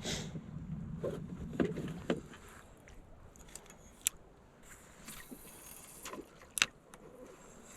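Light knocks and sharp clicks of fishing gear and paddle handled in a canoe, with a low hum and more frequent knocks in the first two seconds, then single sharp clicks about four and six and a half seconds in.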